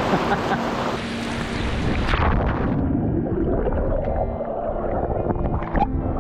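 Heavy rain hissing, then about two seconds in the sound turns suddenly muffled as the camera goes underwater in a swimming pool. Underwater churning and bubbling from swimming strokes follows.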